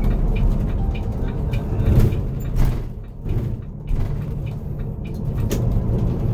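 Steady low rumble of a Volvo B11R coach under way, heard from inside the cab: the diesel engine and road noise. Faint ticks sound over it, and the level dips briefly about three seconds in.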